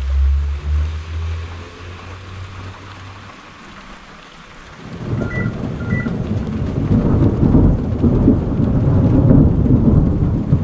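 Thunder rolling in about halfway through, a long low rumble that builds and keeps going, over steady light rain. A low steady hum is there in the first few seconds before it fades.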